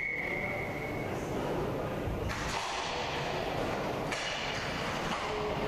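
Rink noise during an inline roller hockey game, with one steady whistle blast that stops about a second in.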